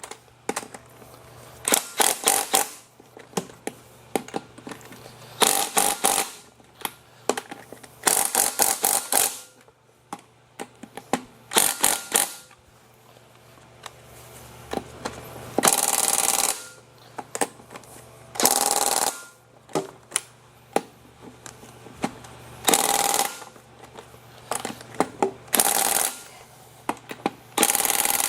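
Hand-tool work on a car's front brakes: bursts of rapid ratchet clicking, with several denser rattling bursts about a second long that sound like an impact wrench.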